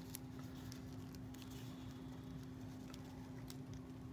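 Faint light clicks and rustles of fingers handling a plastic fashion doll and its small accessories, over a steady low hum.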